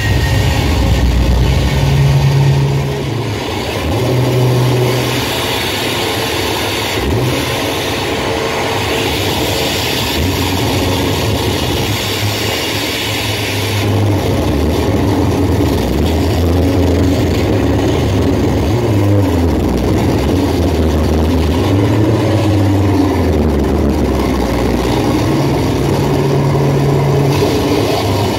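Live noise music: loud, sustained low drones that step and slide in pitch under a dense wash of harsh static, the static brighter in the first half.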